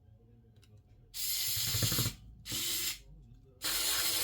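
Electric precision screwdriver driving a small LCD mounting screw, running in three short bursts of about a second, half a second and a second.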